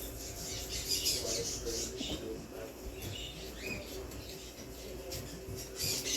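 Small cage birds chirping and tweeting in many short, high calls, over a faint murmur of voices.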